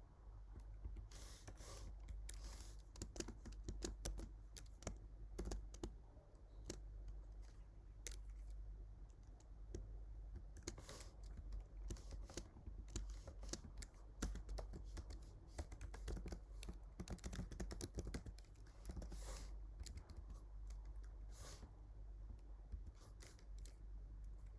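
Typing on a computer keyboard: irregular runs of key clicks with brief pauses between them, as code is written.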